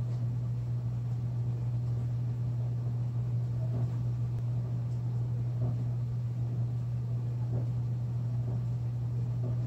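Domestic cat purring steadily and loudly while being scratched under the chin.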